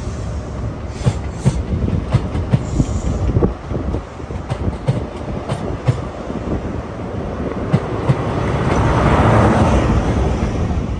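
ScotRail HST (Mark 3 coaches behind a Class 43 diesel power car) running past along a platform: a steady rumble of coach wheels with many sharp clicks over the rail joints. Near the end the diesel power car passes close by and the sound swells to its loudest.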